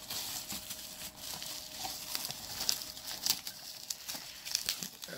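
Plastic packaging and foam filling crinkling and rustling in the hands as a boxed figure is unwrapped, a run of quick irregular crackles, over a faint steady hum.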